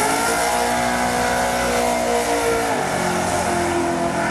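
Car engine at full throttle accelerating hard down a drag strip: its pitch climbs steeply, then holds high and steady, dipping a little partway through.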